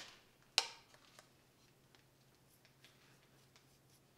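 Quiet workshop: a sharp metallic click about half a second in, then a few faint ticks of hand handling around a milling machine vise, over a faint steady low hum.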